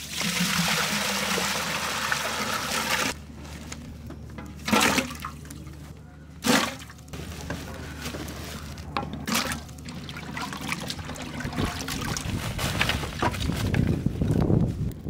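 Water pouring in a heavy stream into a large metal pot, stopping abruptly about three seconds in. Two short loud knocks follow, then rustling, and a louder clatter near the end.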